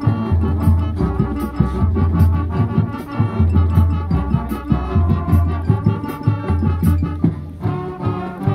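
High school marching band playing its field show: brass and keyboards over a loud, low bass line in repeated held notes, with steady drum strokes.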